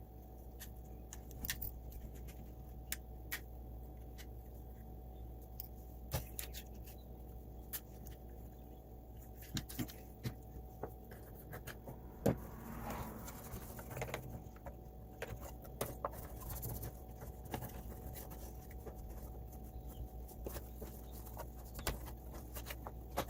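Scattered small clicks and taps of plastic parts being handled while a robot vacuum is taken apart and cleaned, with a brief rustling scrape about halfway through, over a steady low hum.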